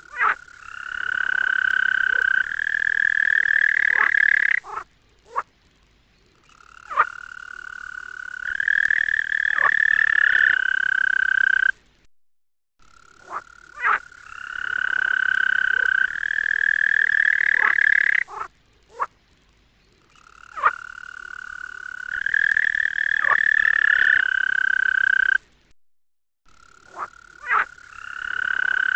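A toad calling: long trilling calls of four to five seconds each, repeating about every six to seven seconds, each stepping up in pitch partway through, with short clicks in the pauses between calls.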